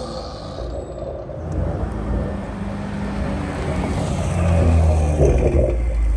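Exhaust note of a 2021 Toyota Supra's turbocharged inline-six, breathing through a Remark cat-back exhaust and a catless downpipe, with the revs shifting; it grows louder to a peak about five seconds in, then eases.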